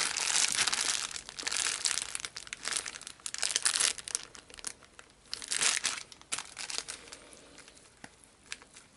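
Plastic bag crinkling and rustling in bursts as a bagged knife is pushed and worked into a softened, wet leather pouch, dying down over the last few seconds.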